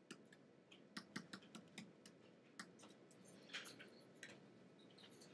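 Faint, irregular light taps and short scratches of a stylus writing on a pen tablet.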